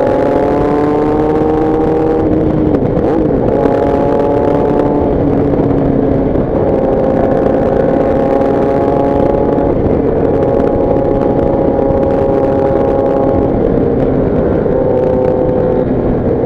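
Motorcycle engine running at road speed, its pitch steady or slowly rising and dipping briefly every few seconds as the throttle is eased, over steady wind and road noise.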